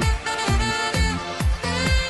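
Upbeat electronic dance music with a steady kick drum about twice a second under held notes.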